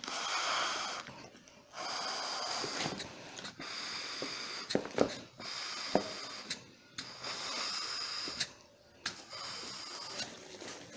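Breaths blown by mouth into a scuba BCD's oral inflator to fill the bladder through a newly fitted hose: about six airy blows of a little over a second each, with short pauses between them and a few light clicks of the inflator valve.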